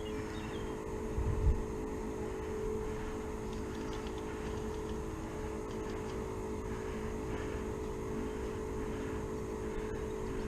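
A steady engine drone holding one pitch throughout, with a single low thump about a second and a half in.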